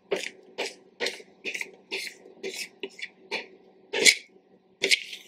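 Spatula scraping banana bread batter out of a plastic mixing bowl in short, repeated strokes, about two a second, the loudest about four seconds in.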